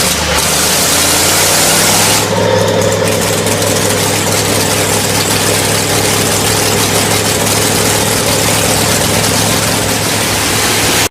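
Engine running just after starting, settling into a steady idle about two seconds in.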